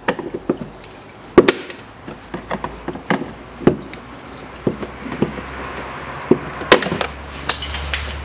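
Plastic retaining clips on a Nissan Murano Z51's plastic side splash shield being pried out with a clip tool: a dozen or so sharp, irregular plastic clicks and snaps, the loudest about a second and a half in and near seven seconds.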